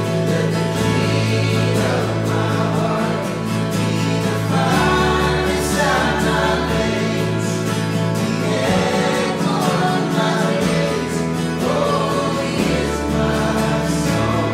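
Worship band playing and singing: several voices together over strummed acoustic and electric guitars, with a low bass line that changes note every few seconds.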